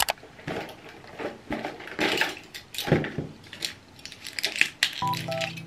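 Crinkling and crackling clicks of a foil-backed pill blister pack being handled and pressed. Near the end, soft vlog music begins.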